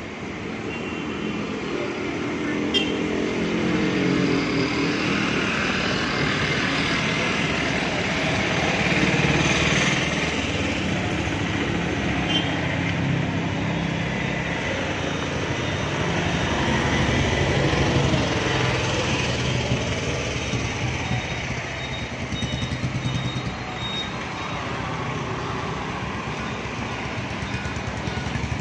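Steady traffic noise of passing motor vehicle engines, rising and falling as vehicles go by.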